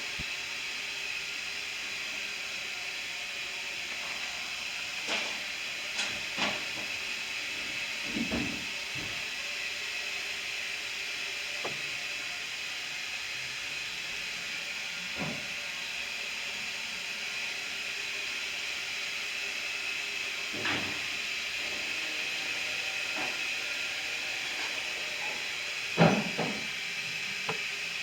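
Steady hiss of running machinery, with scattered clicks and knocks; the loudest knock comes near the end.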